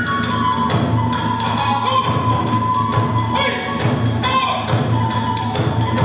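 Kagura hayashi accompaniment: a bamboo transverse flute playing a held, wavering melody over a fast steady beat of taiko drums and small clashing hand cymbals, driving the dancers' spinning.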